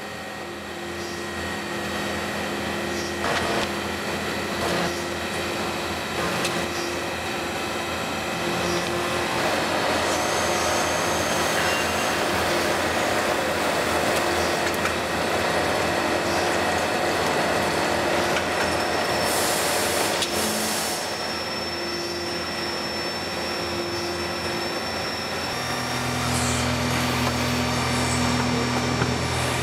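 CNC machine tools running: a steady machine hum and whine with the hiss of cutting and coolant. The sound changes in segments, with a brief loud hiss about twenty seconds in and a deeper hum near the end.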